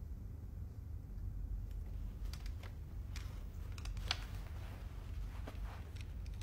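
Tense room tone: a steady low hum with faint scattered clicks and rustles of small movements. These begin about two seconds in, and the sharpest comes about four seconds in.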